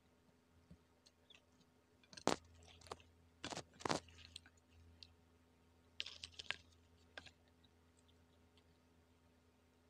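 Close-up crunching and chewing of crispy KFC fried chicken: a few sharp, loud crunches about two to four seconds in and a quicker cluster about six seconds in, with quieter mouth sounds between.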